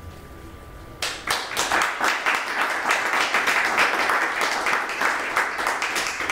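A small audience applauding, starting about a second in.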